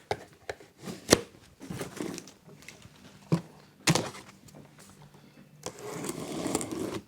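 Cardboard shipping box being handled and opened: scattered sharp knocks and taps, the loudest about a second in and about four seconds in, then a couple of seconds of scratchy rustling cardboard near the end.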